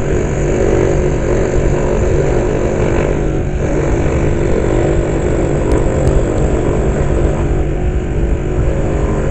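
Scroll saw running steadily, its blade stroking up and down as it cuts through a thin wooden panel.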